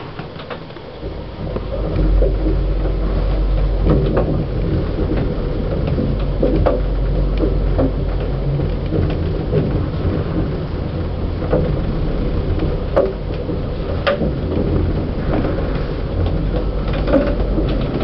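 Old Express passenger lift car travelling up its shaft: after a quiet second or two it starts moving, and a steady low rumble sets in and holds, with scattered clicks and knocks.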